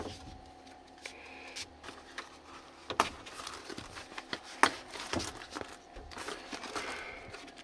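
Scattered clicks, knocks and light scrapes of hands handling things inside a truck cab, over a faint steady hum.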